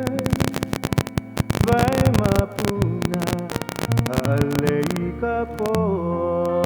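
Music with a melody moving from note to note, cut through by frequent irregular crackling clicks.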